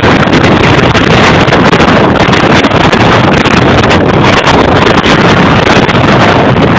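Strong wind blasting straight across the microphone, a loud, steady rush of noise that nearly overloads the recording.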